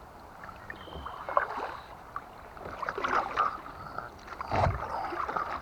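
Kayak paddle strokes dipping and pulling through water in irregular splashes, with one heavier thump a little past the middle.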